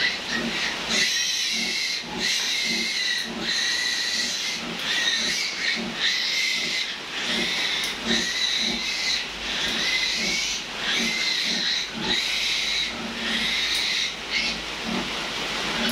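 A newborn piglet squealing high-pitched and repeatedly while it is held and handled. The squeals come one after another, each about a second long, with only short breaks between them.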